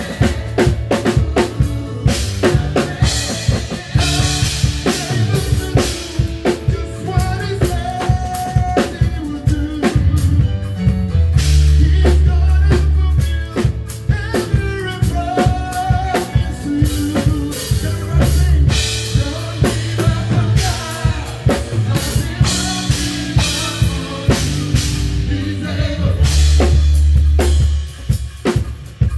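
Live drum kit played in a band: a steady groove of kick, snare and rimshots with cymbals, over sustained low bass notes and melodic instrument lines. The band drops off about a second before the end.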